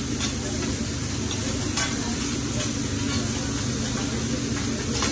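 Vegetables sizzling on a hot hibachi griddle as the chef stirs them with a metal spatula, with a few sharp clicks of the spatula on the steel plate.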